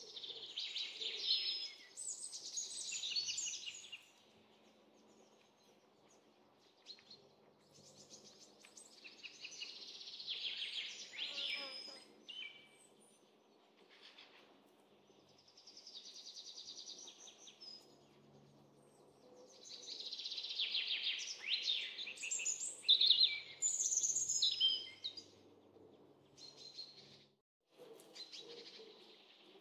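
Birds chirping and twittering in bursts of a few seconds, with quieter gaps between, over a faint low background hum.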